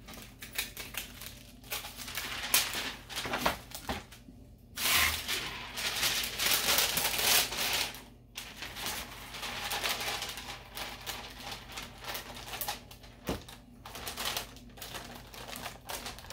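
Plastic shrink wrap sleeve crinkling and rustling as it is handled and pulled over a paper-wrapped bowl, in irregular bursts that are densest about five seconds in.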